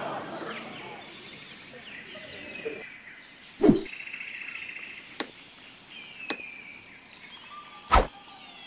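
Forest ambience: birds calling over a steady high insect drone. Two heavy thuds land, one a little over a third of the way in and one near the end, with two sharp clicks between them.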